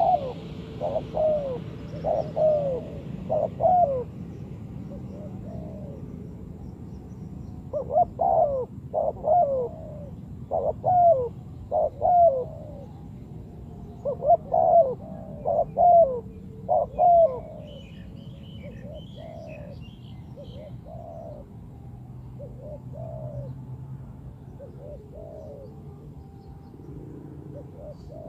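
Spotted doves cooing: bursts of short coo notes, each falling slightly in pitch, repeated in phrases, with fainter coos in the later part. Faint high chirps of a small bird come in about two-thirds of the way through.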